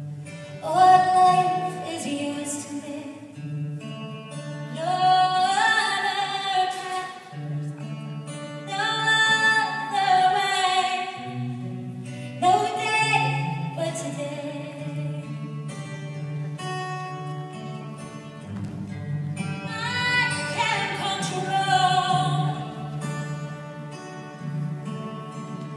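Slow song with a singer's long phrases over held low accompaniment notes, the phrases rising and falling in separate swells.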